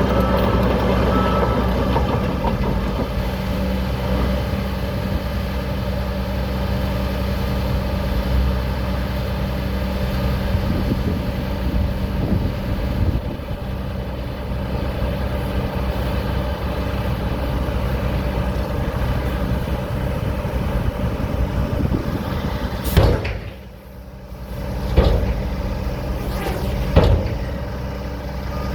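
Heavy diesel engine running steadily at a low, even pitch. Near the end come a few sharp knocks, with a brief drop in the engine sound between them.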